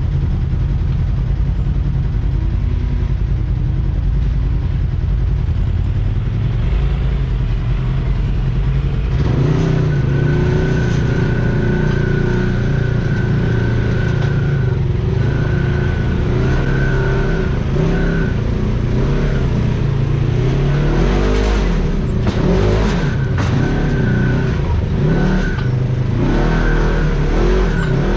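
Off-road side-by-side engine running while driven on a trail. It gets louder about nine seconds in, and its pitch rises and falls as the throttle changes. A steady high whine comes and goes over it, and there are a few knocks in the second half.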